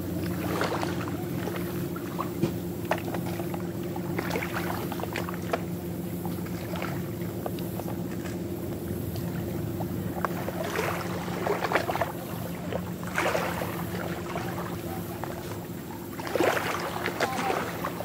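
A steady low hum runs throughout, with scattered taps, scrapes and brief rustles as a child digs with a stick around a plastic bucket on a sandy, rocky shore; the busiest stretch comes near the end.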